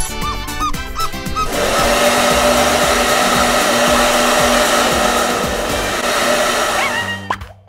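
Hair dryer blowing steadily. It starts about a second and a half in and cuts off shortly before the end.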